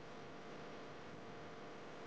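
Faint steady hiss with a faint steady hum underneath, and no distinct taps or other events: room tone.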